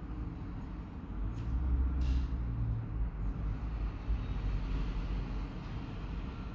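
A low background rumble that swells for about two seconds, starting a little after one second in, with a couple of faint clicks.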